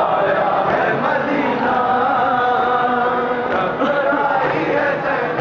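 A crowd of men chanting a noha, an Urdu Shia mourning lament, in unison behind a lead reciter, their voices held on long notes, with a few hand slaps of matam (chest-beating) in the mix.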